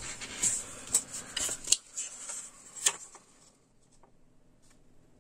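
Hands handling a bench power supply on a wooden desk and picking up its paper operation manual: rustling with a few sharp clicks and knocks in the first three seconds, then quiet.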